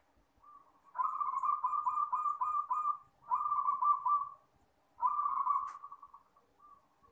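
Zebra dove (perkutut) cooing: three phrases of quick, rolling coo notes, the first starting about a second in and the last ending around six seconds.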